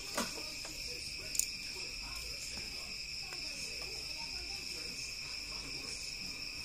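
Steady high-pitched chirring of crickets, with two faint clicks of the metal caliper and carburettor being handled in the first second and a half.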